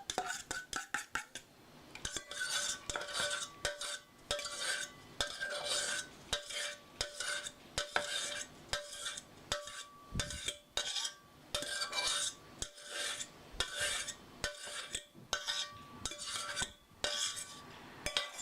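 A kitchen utensil scraping and clinking against a bowl in repeated short strokes, about two a second, with the bowl ringing faintly at each stroke: beaten egg mixture being scraped out into a frying pan. The first second or so is a quick run of clinks.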